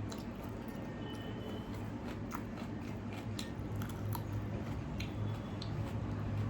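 Close-miked eating of soaked rice and chicken curry: chewing with scattered short, wet mouth clicks, over a steady low hum.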